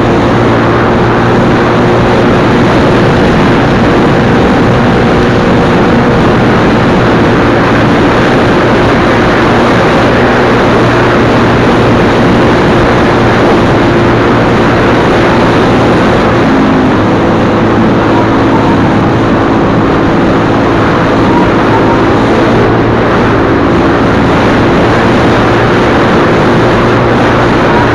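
Off-road motorcycle engine running at fairly steady revs while riding, over a loud rushing noise; its pitch shifts once about halfway through.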